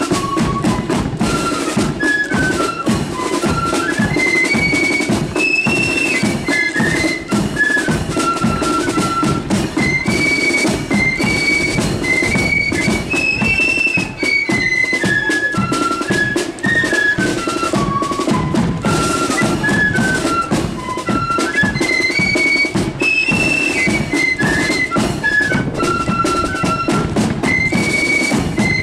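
Marching flute band playing a tune: massed flutes carry a high melody that repeats its phrase about every nine seconds, over steady marching drums.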